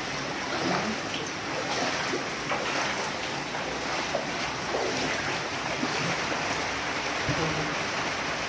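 Floodwater sloshing and splashing around feet wading through ankle-deep water indoors, a steady watery noise with occasional small splashes.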